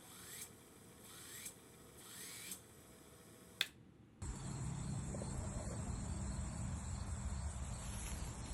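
Small brushless drone motors spinning up in four short, rising whines about a second apart, then a sharp click. The sound then changes abruptly to a steady low rumble with a thin high buzz.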